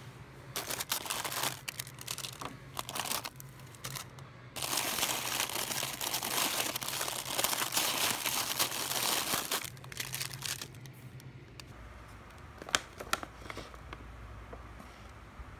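Plastic ice cream bar wrappers crinkling and rustling as the bars are rummaged through in a freezer, densest from about four and a half to ten seconds in. A few sharp clicks near the end.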